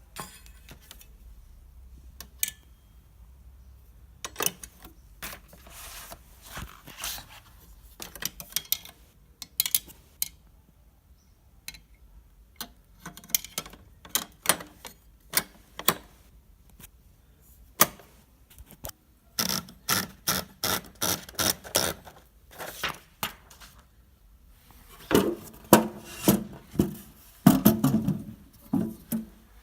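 Hermes 3000 manual portable typewriter being typed on: sharp key strikes in irregular runs, with a fast, even run of strokes about two-thirds of the way through and heavier strokes near the end.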